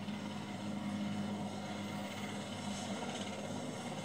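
A steady low hum over an even background hiss.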